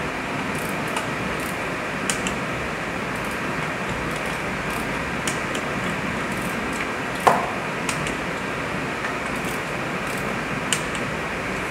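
Light metallic clicks from a wrench working the cylinder-head bolts of a VW 1.4 TSI engine, scattered irregularly, with one louder ringing metal click about seven seconds in, over a steady background hum.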